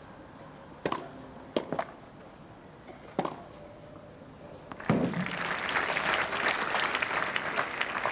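Tennis rally on a grass court: a few sharp racket strikes on the ball, then from about five seconds in the crowd applauding the end of the point.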